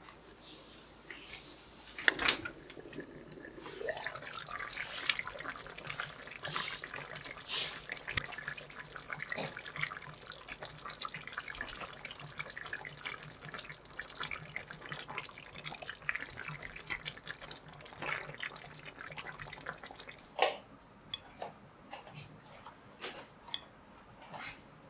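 Water running from a kitchen tap into a sink, with a sharp knock about two seconds in and scattered clicks near the end.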